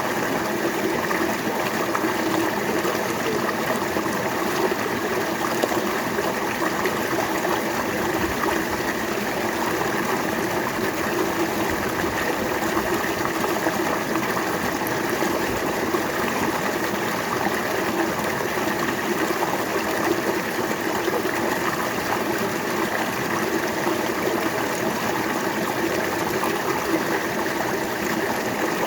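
River water flowing steadily over rocks, a continuous rushing and babbling.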